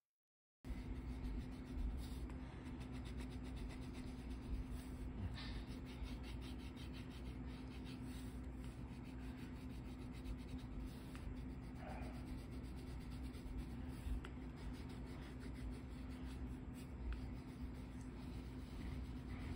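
Brown coloured pencil shading on paper: a steady stream of quick, scratchy back-and-forth strokes, starting abruptly just under a second in, over a steady low hum.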